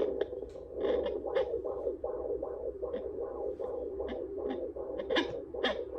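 Handheld fetal Doppler's speaker giving a whooshing womb sound that swells in a steady pulse about two and a half times a second, with scratchy crackles as the probe slides over gelled skin.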